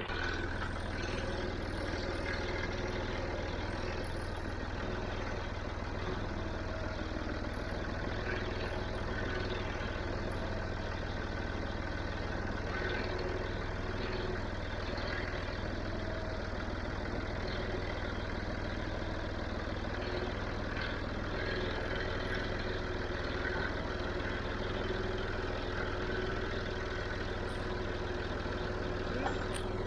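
Farm tractor engine running steadily at low revs while backing a four-wheel hay wagon.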